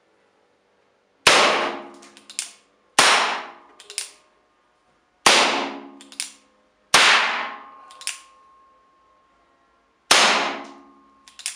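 Five shots from a .45 Colt revolver firing primer-powered wax bullets, spaced unevenly over about nine seconds. Each sharp report is followed within a second by one or two fainter short cracks.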